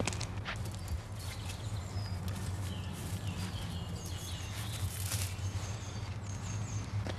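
Footsteps and rustling on a cinder path, with small birds chirping: a run of short, high, repeated notes about four to six seconds in. A steady low hum runs underneath.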